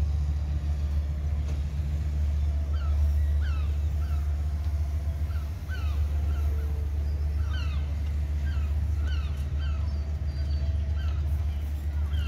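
Steady low rumble, with a flock of birds calling in short, sharp notes that start about three seconds in and go on repeating.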